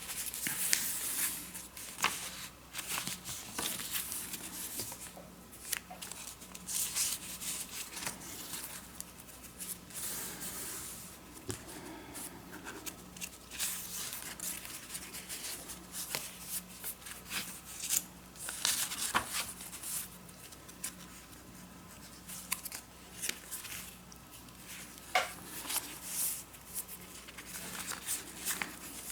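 Pages of a small handmade paper-and-fabric junk journal being handled and turned, with irregular crinkly paper rustles and sharp little flicks and taps.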